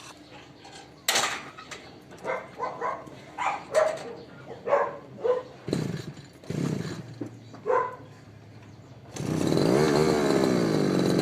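A dog barks about a dozen times in short sharp barks. About nine seconds in, a brush cutter's engine starts up loud and keeps running, its pitch wavering up and down.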